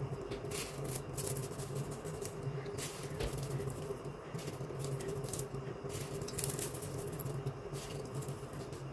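Broken potato chips sprinkled by hand onto a dish of pasta, making irregular light crackles and rustles as the pieces drop and land. A faint steady hum runs underneath.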